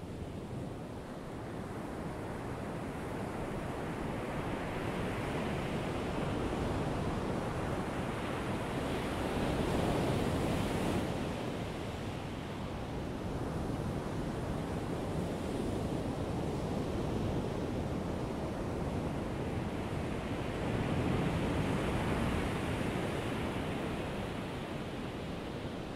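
Ocean surf breaking and washing on a sandy beach, a steady rushing that swells twice, about ten seconds in and again about twenty-one seconds in.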